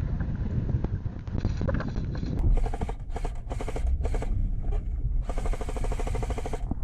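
Airsoft rifle firing on full auto: several short rapid-fire bursts, then a longer burst of about a second and a half near the end, over a low steady rumble.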